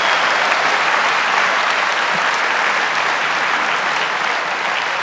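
Theatre audience applauding, a dense steady clatter of many hands that eases off slowly.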